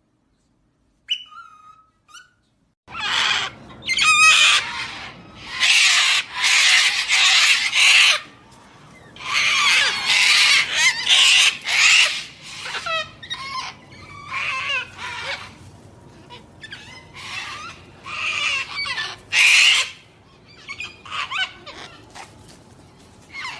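A parrot screeching and squawking in repeated loud, harsh calls that come in bouts of a few seconds, after two short whistles at the start.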